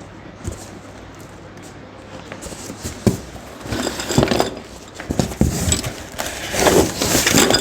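Bicycle packaging being handled and pulled open: rustling, crinkling wrap and cardboard with scattered knocks and light clinks, starting a couple of seconds in and growing busier toward the end.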